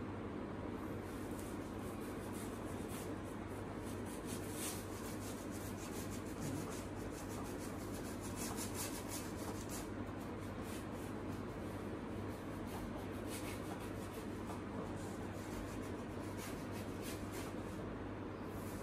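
Wide flat paintbrush scrubbing paint onto a large painting panel in many short, scratchy back-and-forth strokes, over a steady low hum.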